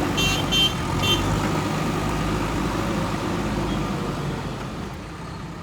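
JCB backhoe loader's diesel engine running steadily, easing off slightly near the end. A few short high-pitched chirps sound in the first second or so.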